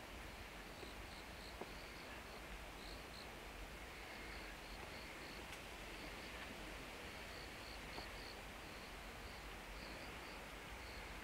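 Faint, high-pitched chirping from a small calling animal, two or three short notes a second at uneven spacing, over a steady low background hum.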